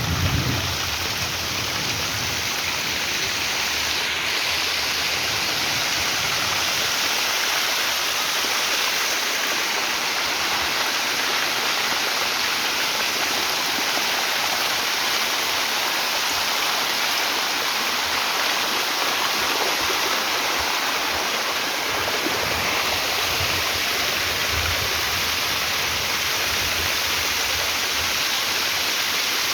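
Steady rush of water from a heavy rainstorm: an even, unbroken hiss of rain and running rainwater.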